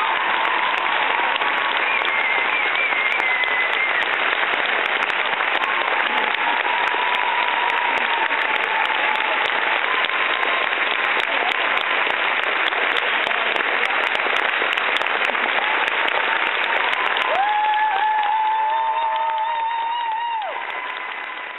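Large audience applauding steadily, with some cheering voices. About eighteen seconds in, a long held note sounds over the clapping for a few seconds, and the applause then fades out.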